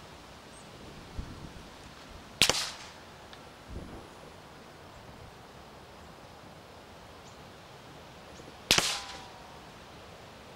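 Two suppressed rifle shots about six seconds apart, each a sharp crack with a short echoing tail from a silenced rimfire or air rifle. Fainter low thumps come a second or so before the first shot and just after it.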